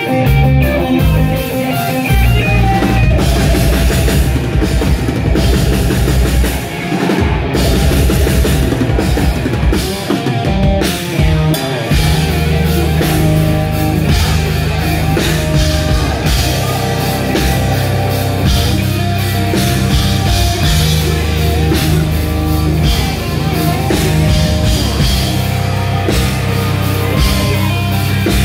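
Rock band playing live and loud: electric guitars, bass and drum kit. It plays stop-start hits with short breaks in the first half, then the full band runs on unbroken from about twelve seconds in.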